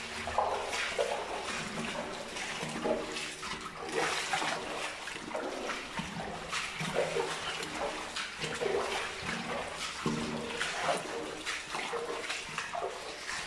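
Footsteps splashing and scuffing through shallow water along a concrete tunnel passage, an uneven step every half second to a second.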